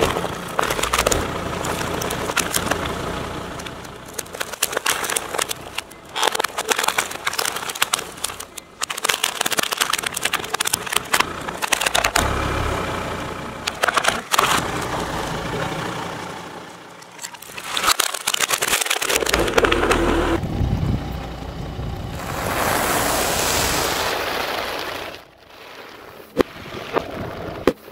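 A car tyre crushing a plastic toy racing car on gravel, then a box of cornflakes, with repeated cracking and crunching of plastic and flakes under the wheel. The sound is played backwards, so noisy passages swell up and then cut off suddenly.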